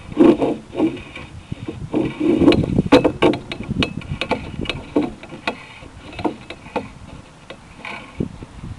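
Irregular clicks and knocks, thickest about three seconds in, as a sewer inspection camera and its push cable are worked through crushed Orangeburg fibre pipe.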